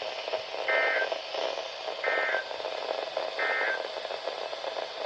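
Three short bursts of Emergency Alert System (SAME) digital data tones, evenly spaced over steady radio hiss: the end-of-message code that closes an EAS alert.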